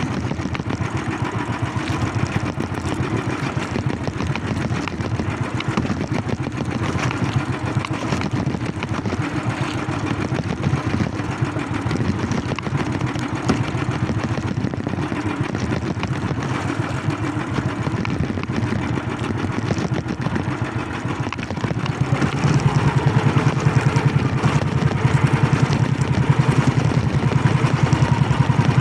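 Small engine running steadily, getting louder about three-quarters of the way through.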